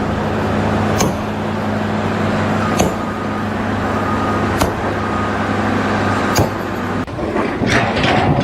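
A motor engine running with a steady low hum, with sharp knocks about every two seconds; the sound changes abruptly near the end.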